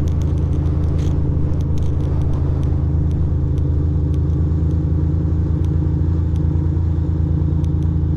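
Ducati Monster 620's air-cooled V-twin running at a steady, even low speed while the motorcycle cruises slowly, heard from the rider's position.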